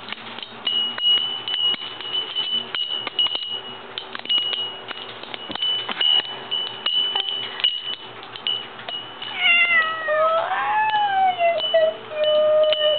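Wooden wind chime knocking and clattering irregularly as a cat bats at its tubes. About two-thirds of the way through, the cat meows in drawn-out calls that slide in pitch.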